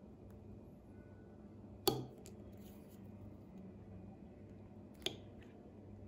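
A metal fork clinking against a plate twice as it cuts into soft baked quince dessert, the first clink about two seconds in and louder, the second about five seconds in.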